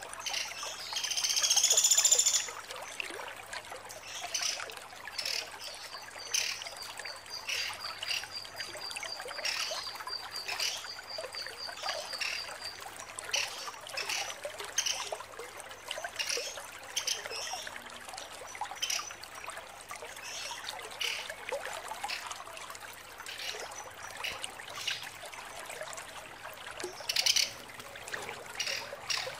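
Female pelatuk sampit woodpecker calling: a loud, sharp high call about a second in, then a long, fast rattling trill of evenly spaced notes lasting about six seconds, with short sharp notes scattered through the rest.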